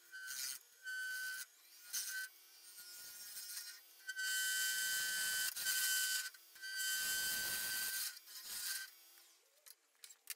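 A turning tool cutting a resin-cast burl blank on a running wood lathe, in a series of passes: three short cuts in the first two seconds, then two longer ones starting about four and seven seconds in. Each cut is a scraping hiss with a steady high tone over it.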